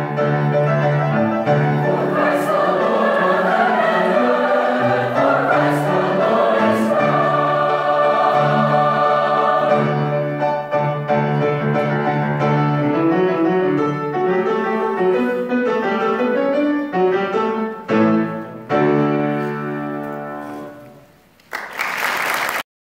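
Large mixed choir singing with piano accompaniment, holding long notes; the final chord dies away near the end and the audience breaks into applause.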